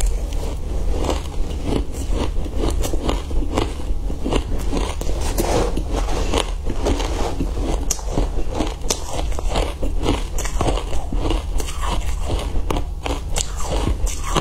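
Close-miked crunching and chewing of a mouthful of shaved ice, a dense, continuous run of sharp crackling crunches.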